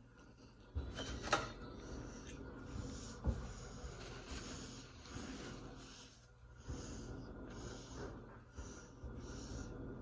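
Close-up eating sounds: a string of short chewing and breathing noises, with a sharp click about a second in and a low thud a couple of seconds later.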